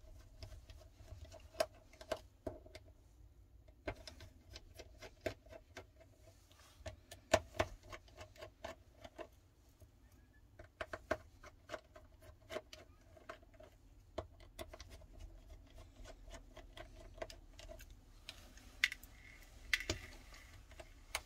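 Small precision screwdriver clicking and ticking as the mid-frame screws of a Samsung Galaxy S10+ are backed out one by one, in irregular light clicks with a sharper one about seven seconds in.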